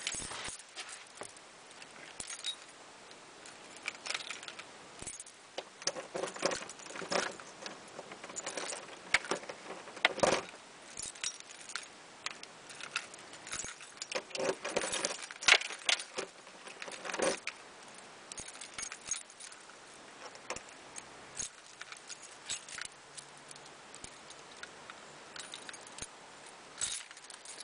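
A bunch of keys on a ring jangling and clinking in the hand in irregular bursts while keys are tried one after another in a doorknob lock.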